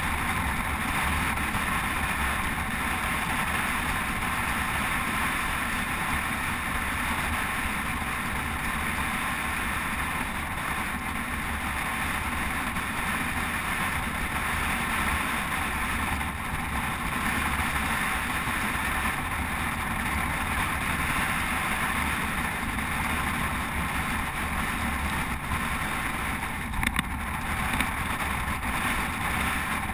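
Steady rush of wind and road noise from a GoPro mounted on a road bike riding at speed, with a brief knock near the end.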